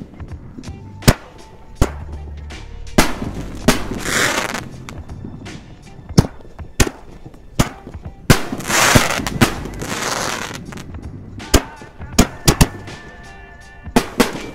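Chroma 5-inch canister shell fireworks firing and bursting: a quick series of sharp bangs, with two longer hissing, crackling stretches, one about four seconds in and one around nine to ten seconds.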